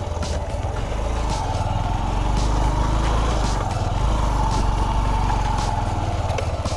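Motorcycle engine running under load, its note rising and falling as the bike is ridden through slippery mud. Scattered sharp ticks sound over it.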